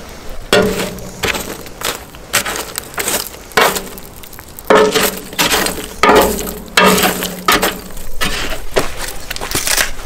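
Ash and charcoal embers being scraped and piled over potatoes in a steel grill box. Charcoal chunks and wood are dropped on top with repeated, irregular glassy clinks and scraping clatters.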